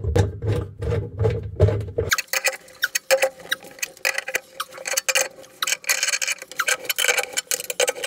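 A socket wrench clicking and metal clinking as a gear puller's centre screw is wound down against a washing machine's drive shaft to pull the seized drum hub free. For about the first two seconds a low steady hum runs under the clicks, then cuts off suddenly, leaving quicker, irregular clicks and clinks.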